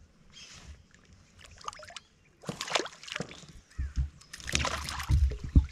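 A hooked tabarana thrashing and splashing at the water's surface beside a kayak as it is reeled in. Several splashes come from about two and a half seconds in, mixed with low thumps toward the end.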